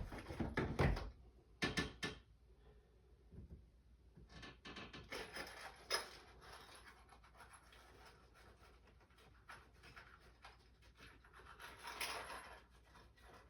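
Faint, intermittent scraping, rubbing and clicking from small hardware being handled, with a few sharper clicks and knocks in the first two seconds.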